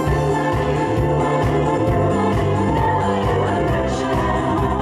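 Upbeat J-pop song with singing over a steady beat, played loud through a live venue's sound system.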